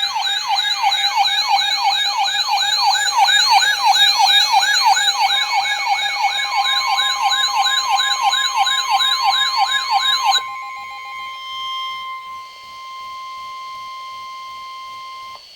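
Electronic warbling siren alarm of a weather alert radio, sweeping up and down a few times a second, sounded for an incoming NOAA Weather Radio flood warning. It stops about ten seconds in, leaving the steady 1050 Hz NOAA Warning Alarm Tone, which cuts off near the end.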